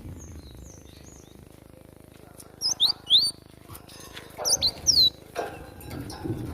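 Cinereous tit (gelatik batu) calling: faint short chirps at first, then louder clusters of sharp, quickly sliding chirps from about two and a half seconds in, in the agitated calling used for fighting-style song training.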